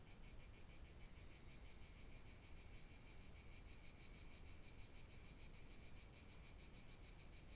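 Faint insect chirping: a high, even pulse at about seven beats a second that goes on without a break, over a faint low rumble.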